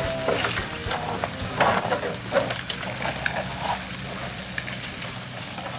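Truck driving slowly along a rough, grassy dirt logging road: a steady low engine hum under irregular crackling and rustling.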